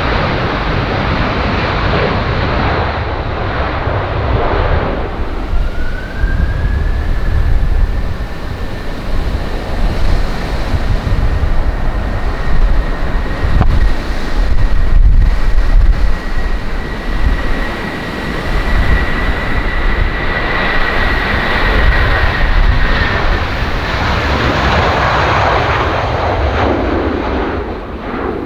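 Airliner passing close on a runway, its engines a loud rumbling noise with a whine that rises about six seconds in, holds steady, and fades near the end. Gusty wind buffets the microphone.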